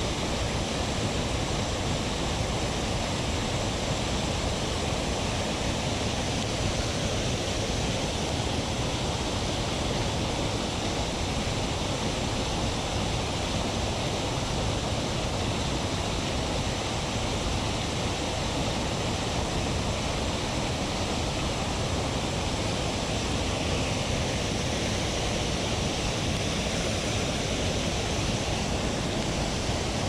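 Mountain stream water rushing, a steady unbroken rush.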